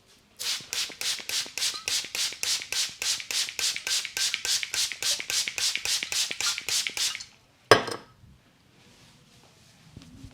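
Rapid percussive hand slaps of an Indian head massage, an even rhythm of about four to five strikes a second lasting about seven seconds, then a single loud, sharp crack about half a second after they stop.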